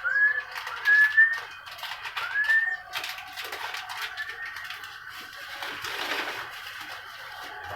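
F1 canary singing: a phrase of short whistled notes that each slide upward, four of them in the first half, over quick clicky chatter.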